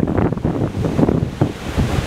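Rough sea waves breaking and splashing against a rocky shore, with strong wind buffeting the microphone in gusts.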